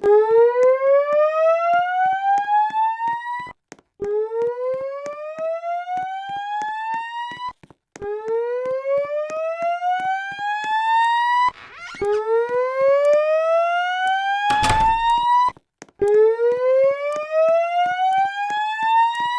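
Fire alarm voice-evacuation speaker sounding its slow-whoop alert tone between spoken messages: five rising sweeps of about three and a half seconds each, with brief gaps between them. A short noise is heard about three-quarters of the way through.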